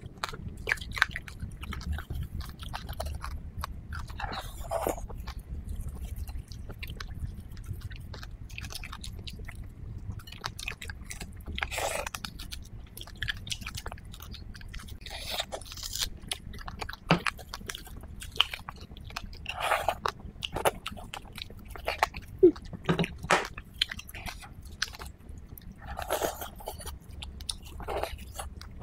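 Close-miked eating: chewing and biting into pieces of chili-oil fish, with many short wet mouth clicks and smacks scattered throughout. A low steady hum runs underneath.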